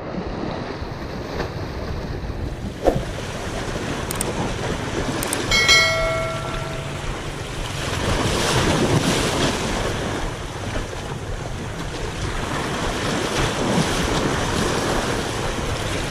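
Sea waves washing and wind buffeting the microphone. A sharp click comes about three seconds in, and a short ringing tone of several pitches sounds about six seconds in.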